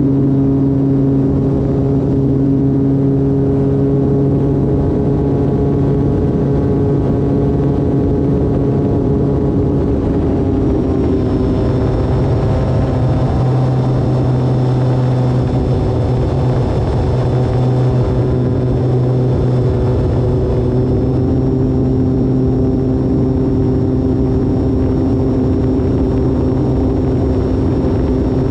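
E-flite Turbo Timber Evolution RC plane's electric motor and propeller running steadily in flight, with a high whine over the prop's hum. The pitch shifts as the throttle changes, about a third of the way in and again about three quarters of the way through.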